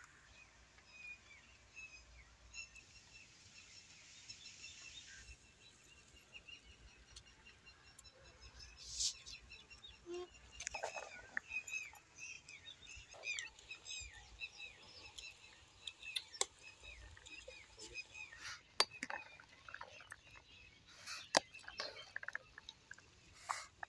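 Small birds chirping on and off, with scattered sharp clinks and knocks of a spoon and dishes against a bowl as salad ingredients are tipped in and stirred, more of them in the second half.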